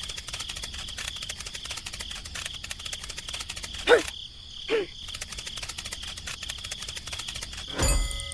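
Crickets chirping: a fast, even, steady trill with two short sharp chirps about four seconds in.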